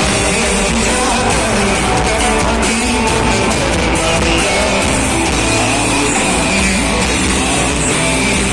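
Live rock band playing loudly, with electric guitar, drums and a singing voice, heard as a loud, dense wash of amplified sound.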